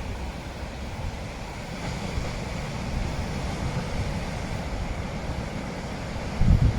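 Wind buffeting the microphone: an uneven low rumble with a strong gust near the end.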